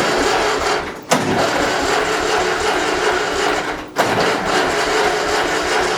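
1955 Ferguson TEA-20's four-cylinder petrol engine being cranked over on the starter in three runs, with short breaks about a second in and about four seconds in. It is hard to start after running out of fuel, which raises the worry that it sucked up debris.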